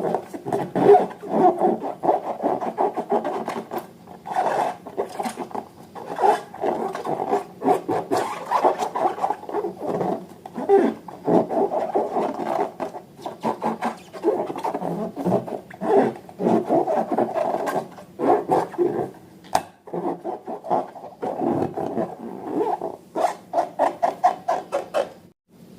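Slime being kneaded and squeezed by hand: a continuous, irregular squishing and crackling made of many small sticky clicks.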